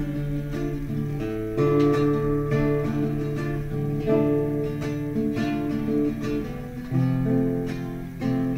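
Instrumental music on a plucked acoustic guitar, with chords changing every second or so.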